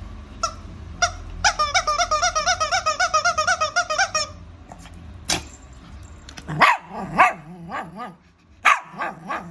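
Excited Shih Tzu giving a fast run of high-pitched squealing whines, about seven a second, for nearly three seconds. In the second half it makes a few short, sharp sneezes, the kind of sneezing dogs do when they are happy or excited.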